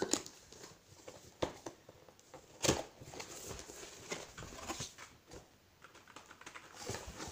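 Scattered knocks, taps and scrapes of a cardboard keyboard box being handled and turned over, with one louder knock a little before three seconds in.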